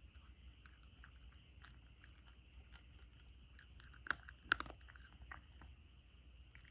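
Cat eating dry kibble from a plate: a steady run of small crisp crunches, with two louder clicks a little past halfway.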